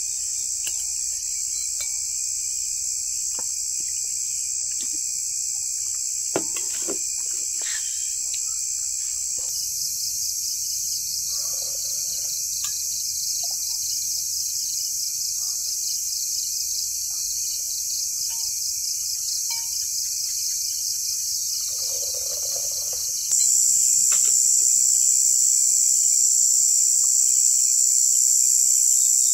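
Insects chirping in a continuous high-pitched chorus, with a rapid pulsing chirp through the middle part. The chorus gets suddenly louder about 23 seconds in.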